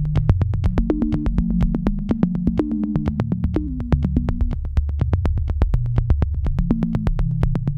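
Electronic background music: a synthesizer bass line moving between notes over a steady, fast ticking beat of about five ticks a second.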